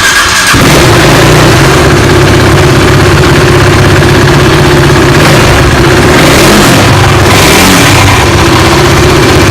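KTM RC 390's single-cylinder engine idling steadily just after starting, with the loose windscreen (visor) vibrating and rattling on its mounts, a noise caused by the visor's mounting nuts having worked loose.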